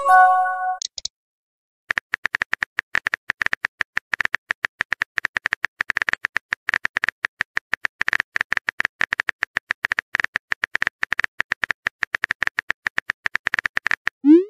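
Phone texting-app sound effects: a short rising whoosh and chime as a message is sent, then, after about a second, a long run of rapid keyboard-tap clicks as a new message is typed.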